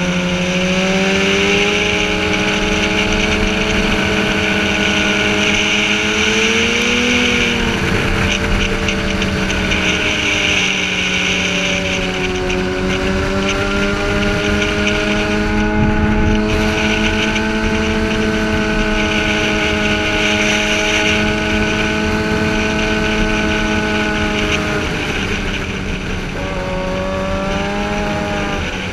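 Sportbike engine running hard at steady high revs, its pitch rising and falling gently with the throttle through the bends, over a constant rush of wind on the helmet-mounted microphone.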